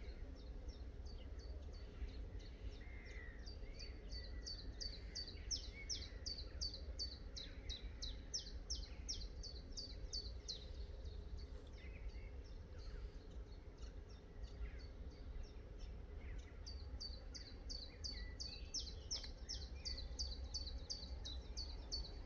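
Birdsong: a small songbird repeating a short, sharply falling high note about three times a second in long runs, pausing for several seconds midway, over a faint low background rumble.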